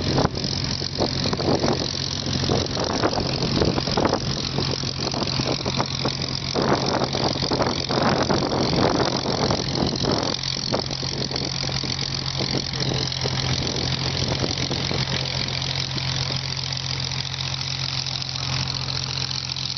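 Supermarine Spitfire's V12 piston engine running at low power as the fighter taxis, a steady low hum with a rough, uneven pulsing that is strongest in the middle.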